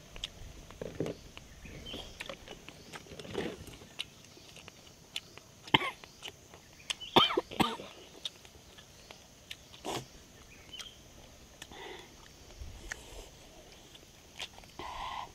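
Sounds of a meal: scattered sharp clicks and knocks, with a few short throaty bursts like coughs, loudest about halfway through.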